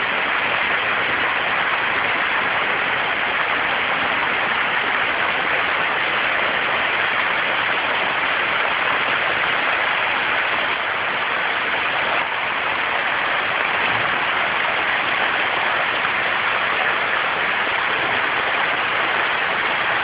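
Heavy downpour, rain pounding on surfaces with water pouring off a roof, a steady hiss without a break.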